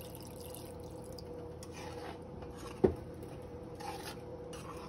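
Water poured from a glass into a pan of chicken curry, then a spoon stirring and scraping through the gravy, with one sharp knock about three seconds in, over a steady low hum.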